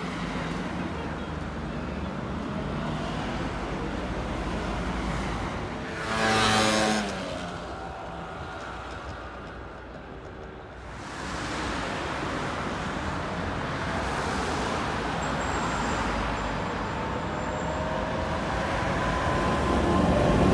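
Street traffic noise, with one vehicle passing loudly about six seconds in. Near the end a tram's motor whine slowly rises in pitch and grows louder as the tram moves off alongside.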